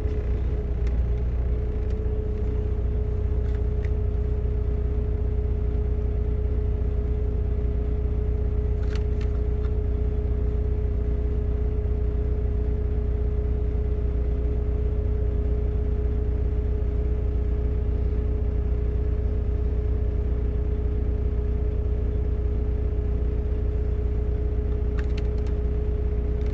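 Semi truck driving, heard from inside the cab: a steady low engine and road rumble with a constant hum over it, and a couple of faint clicks.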